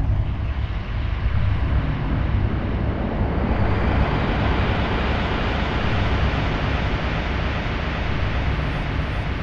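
Dark ambient drone music: a dense wash of noise over a steady low rumble, the noise swelling and growing brighter over the first few seconds, then holding steady.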